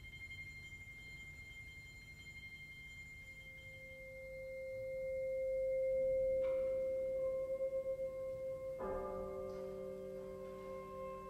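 Quiet, sustained music from a brass and percussion ensemble. A high ringing tone fades out while a lower held note swells and then eases off. A soft strike comes a little after six seconds in, and a louder struck chord near nine seconds leaves several pitches ringing on.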